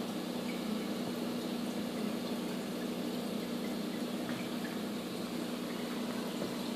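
Steady hum and water rush of an aquarium's pump running.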